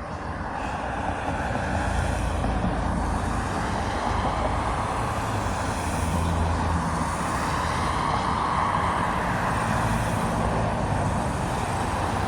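Steady vehicle noise: a low rumble with a broad rushing sound that swells over the first couple of seconds, then holds steady.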